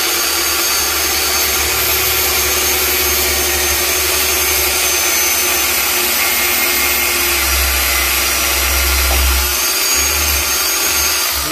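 Electric drill running steadily at full speed, boring through an antler skull cap into the wood inside a taxidermy form; the low rumble grows heavier for a couple of seconds past the middle as the bit loads, and the drill stops abruptly near the end.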